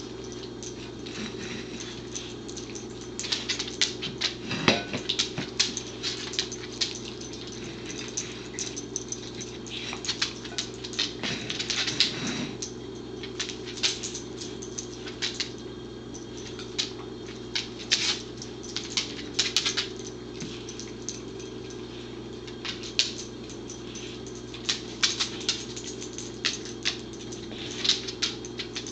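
A corgi licking a plate clean on a tile floor: runs of quick, irregular licks and small clicks as the plate is nudged about, over a steady low hum.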